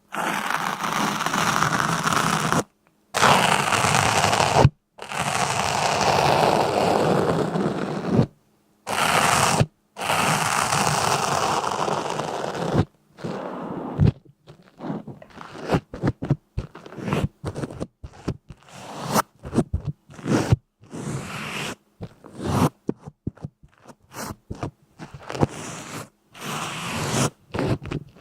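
Scraping and crunching: long, steady scrapes lasting a few seconds each, broken by abrupt cuts, then from about halfway a quick run of many short crunches.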